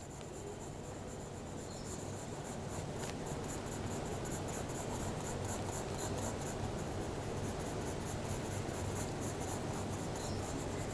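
Graphite pencil shading on paper: quick back-and-forth scratching strokes, several a second, over a low steady hum.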